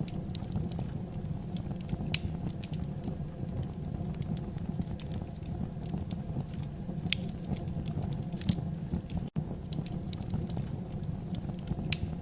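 Wood fire burning in a fireplace: a steady low rumble of flames with irregular crackles and a few sharper pops.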